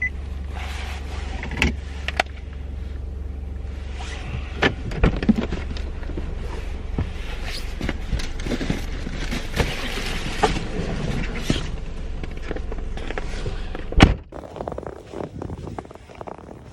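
Parked car's engine idling, with knocks and rustling of someone moving about in the car, then a car door slams shut about 14 seconds in, after which the engine hum drops away.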